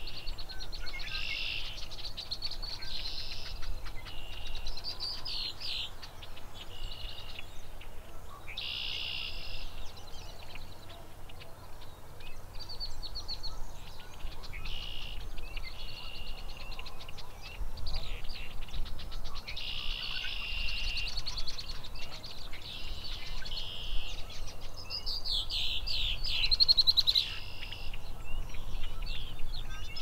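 Small songbirds singing, a busy run of short, high, trilled and buzzy phrases repeated every second or two, over a steady low background rumble.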